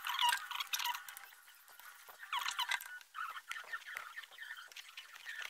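Screwdriver turning a screw out of a Bluetooth speaker's plastic housing: repeated short high squeaks with light clicks.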